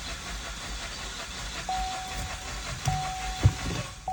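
A four-cylinder car engine cranking over on its starter for a compression test, a steady hiss with an even low pulsing. Partway through, a single-pitched warning chime starts and repeats about once a second, and a couple of sharp knocks follow near the end.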